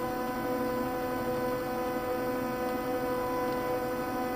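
Stepper motors of a home-built CNC hot-wire foam cutter running as they drive the wire through the foam, a steady whine of several held tones.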